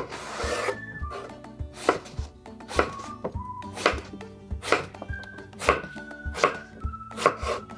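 Kitchen knife cutting a peeled eggplant on a wooden cutting board: one long slicing cut at the start, then chops into bite-size pieces about once a second, each ending in a sharp knock on the board. Light background music with a steady beat plays under it.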